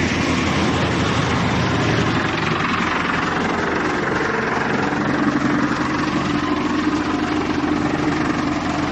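Mobile wood chipper running steadily, its engine hum under a dense mechanical noise that stays at an even level.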